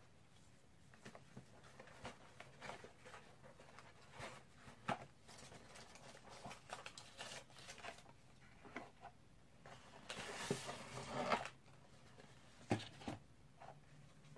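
Hands handling camera packaging: paper inserts and a plastic tray giving scattered light clicks and rustles, with a longer rustle about ten seconds in and two sharp clicks near the end.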